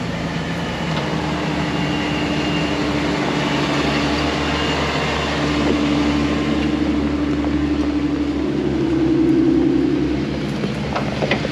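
Jeep engines running at low speed as off-road Jeeps crawl along a dirt trail: a steady low engine note that grows louder about eight seconds in as one comes close, then eases off.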